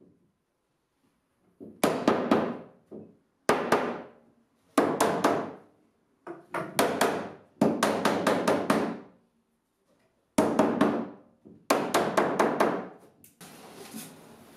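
Mallet knocking a wooden shelf down onto the turned spindles of a small bookcase, seating the joints. The blows come in about seven runs of three to five quick strikes, with short pauses between runs.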